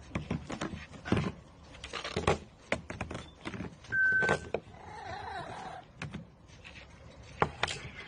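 Hard plastic rings knocking and clattering onto a toy ring-stacker as a blue-and-gold macaw stacks them, with scattered clicks and knocks throughout. There is one short high whistle about four seconds in.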